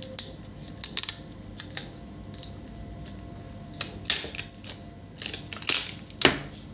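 Irregular light clicks and short scrapes of multimeter probe tips on a laptop motherboard, about ten spread unevenly, as voltages are checked at the board's pins.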